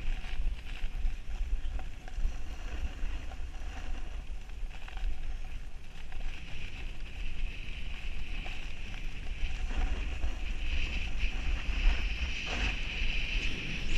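Wind buffeting an action camera's microphone during a fast run down a groomed ski slope, with the hiss and scrape of edges sliding over packed snow, which grows louder in the last few seconds.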